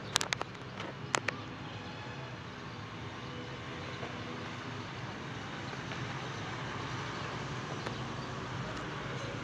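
Steady rumbling background noise that grows slightly louder, with a few sharp clicks in the first second and a half.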